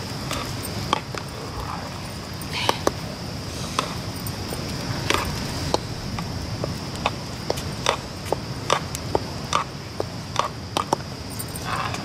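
Steady high-pitched drone of insects, with irregular sharp clicks and knocks scattered through it.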